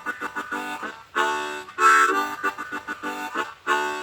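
Diatonic harmonica in G playing a chugging chord rhythm, blow and draw chords tongued into short choppy stabs, with two longer held chords near the middle.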